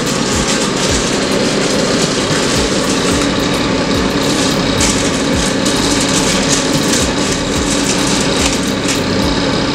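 A steady, fan-like mechanical drone runs without a break, with a constant low hum and a hiss above it.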